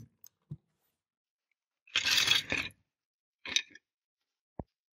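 Small die-cast model car parts being handled and scraped: a couple of faint knocks, then a short scrape about two seconds in and a shorter one about a second later.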